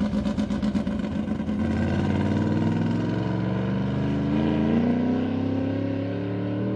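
A land-speed racing vehicle's engine under hard acceleration: a rapid, rough pulsing at first, then a pitch that climbs slowly and steadily as it pulls away.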